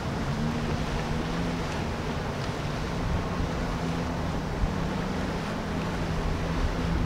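Outboard engines of a catamaran center-console boat running at slow speed, a steady low hum, over a hiss of wind and water.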